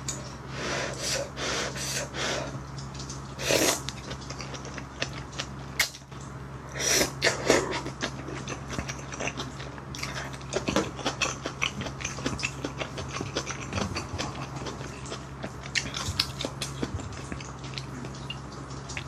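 Close-up slurping of noodles out of pork back-bone stew, with several loud wet sucks in the first half, followed by steady chewing full of small wet clicks.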